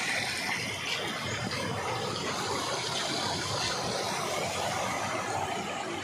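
Steady sound of a small stream running over rocks.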